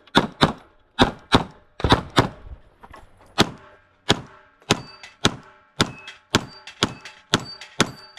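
Rapid 9mm pistol shots from a Glock 45, about two a second with a short pause around three seconds in. From about halfway, several shots are followed by a brief metallic ring.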